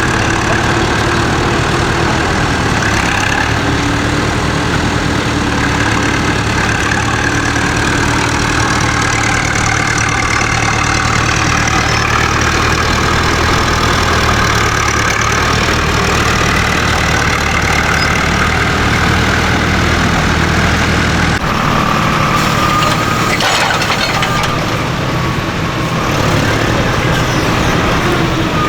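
Farm tractor engines running at work, their pitch drifting slowly up and down; about three-quarters of the way through the deep hum drops away.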